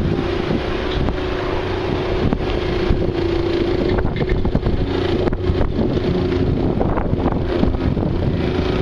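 An engine running steadily with an even hum, with wind buffeting the microphone.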